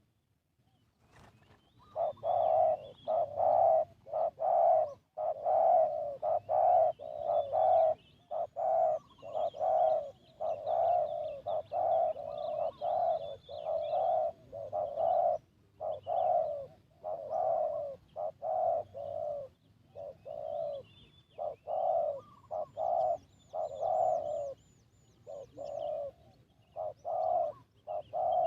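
Spotted dove cooing: a long, almost unbroken run of short low coo notes, about two a second, starting about two seconds in. Other small birds chirp faintly behind it.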